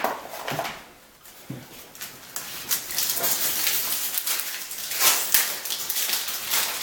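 Foil-and-plastic trading card pack wrappers being torn open and crinkled by hand: a dense, irregular crackling.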